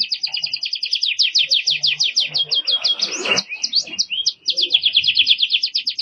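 Domestic canary singing: fast trills of rapidly repeated high notes, about ten a second, broken about halfway by a phrase of slower sliding notes, then a fast trill again.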